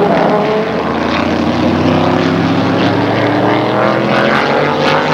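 Engines of vintage sports racing cars at speed on the circuit, several engine notes overlapping and slowly shifting in pitch as the cars pass.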